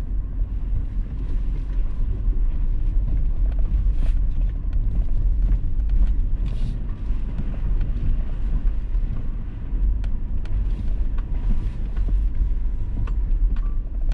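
Toyota 4Runner driving on a gravel forest road: a steady low rumble of engine and tyres, with scattered small ticks and rattles over it.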